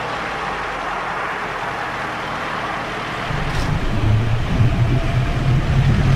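Car engine and road noise heard from inside a moving car. A low engine drone gets louder about halfway through.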